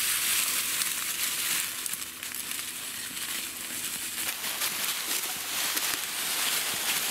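Dry leaf litter crunching and rustling underfoot as people walk steadily through it, a continuous crackling shuffle.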